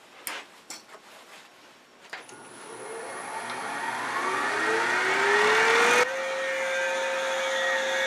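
A few light knocks, then a wood lathe's motor spinning up, its whine rising steadily in pitch for about four seconds and settling into a steady hum at running speed.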